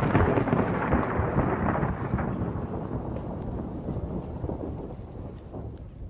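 Thunder rumbling and crackling in the long tail of a thunderclap, slowly dying away.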